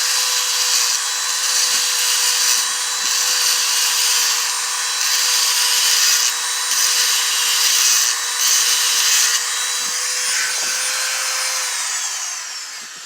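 A small high-speed power grinder whining steadily while grinding a steel lock-pick blank, the grinding hiss coming and going in short passes about a second long. Near the end the motor is switched off and its whine falls in pitch as it spins down.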